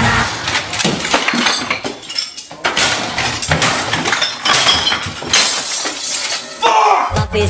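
Glass bottles smashing and clinking in a string of crashes.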